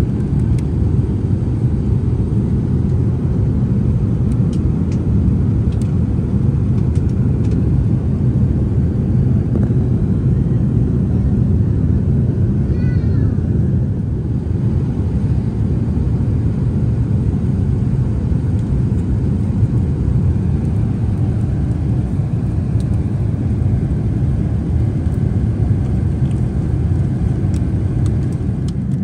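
Steady low rumble of an Airbus A380's cabin in cruise, heard from an economy seat, with a few faint ticks.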